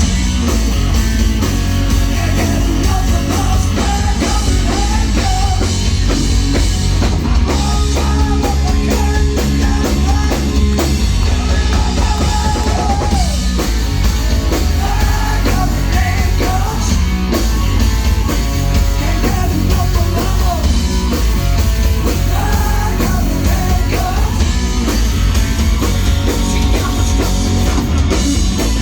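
Rock band playing loud live music: drum kit and electric guitar over heavy bass, with a wavering melody line on top.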